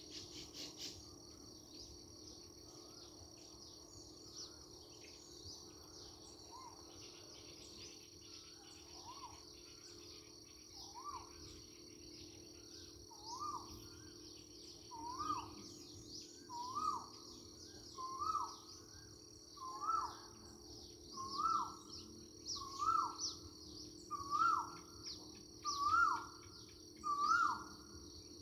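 A bird calling over and over: a short rising note, repeated about every one and a half seconds. It starts faintly about a third of the way in and grows steadily louder. Under it runs a steady high insect chirring.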